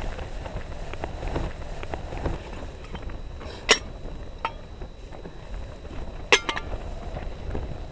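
Metal camp cookware being handled: small knocks, then two sharp metallic clinks, one a little under four seconds in and another about two and a half seconds later with a short ring, as lids and mugs touch. A low wind rumble runs underneath.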